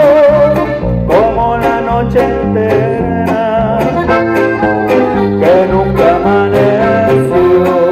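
Live norteño band music: accordion melody over bass and drums, with the singer's voice holding a wavering note near the start.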